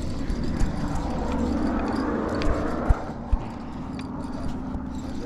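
Steady low hum of a fishing boat's motor, with a rushing noise swelling and fading and two sharp knocks, one just under three seconds in and one about half a second later.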